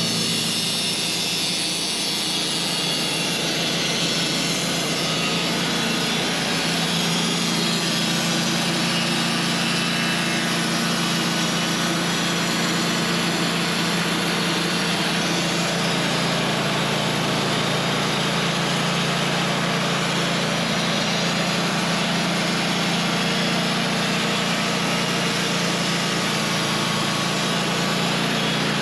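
Gas-engine manual band sawmill running steadily under load as it saws through a large white pine log, the engine's drone mixed with the rush of the blade in the wood.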